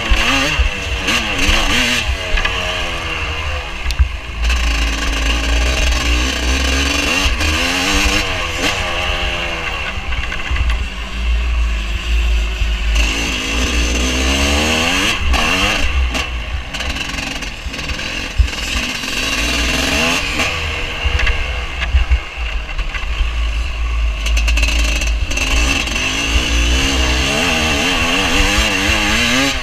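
Vintage motocross bike's engine at race pace, its pitch climbing and dropping again and again as the rider opens the throttle, shifts and backs off, with wind buffeting the onboard microphone. A few sharp knocks stand out, about four seconds in and again near the middle.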